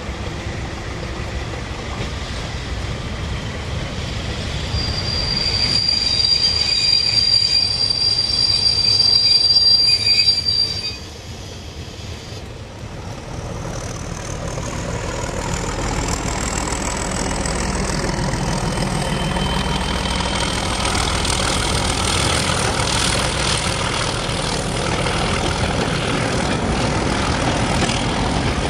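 BR Class 31 diesel locomotives hauling passenger coaches. The first runs in with engine and rail noise under a high, steady squeal from the wheels on the track, and it cuts off abruptly about eleven seconds in. Then a second Class 31 works past, its diesel engine growing steadily louder, with a thin whistle rising in pitch.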